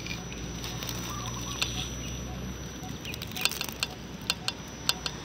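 Crackles and sharp clicks of a 1:10 scale RC rock crawler's tires on gravel and rock, several in quick succession from about three seconds in, over a low steady hum.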